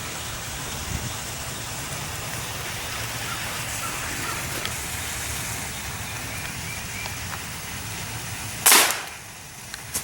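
A single shot from a suppressed Beretta ARX 160 .22 rifle firing subsonic .22 LR, one short sharp report near the end, over a steady outdoor hiss.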